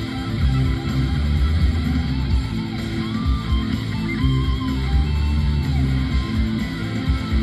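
Rock music led by guitar, with a dense, steady band sound and some sliding, bending notes near the middle.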